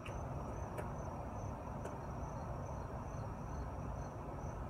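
Insects chirping in a steady, evenly pulsing high trill, with a few faint taps.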